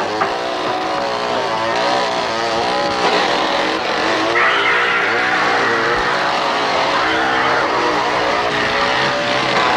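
Chainsaw engine revving up and down, with the pitch rising and falling over and over.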